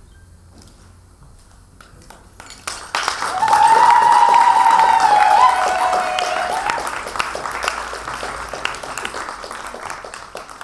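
Audience applause breaking out about three seconds in after a near-quiet pause, with one long, loud held cheer from the crowd on top of the clapping for a few seconds. The clapping then slowly thins out.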